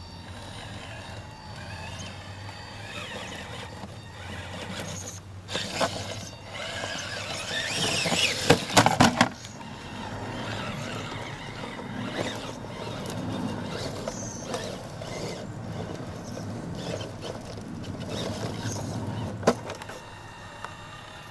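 Electric drive motor and gearbox of a Tamiya CR-01 scale RC crawler whining under load on a climb, the pitch rising and falling with the throttle. It is loudest about midway, where a few sharp knocks come in quick succession.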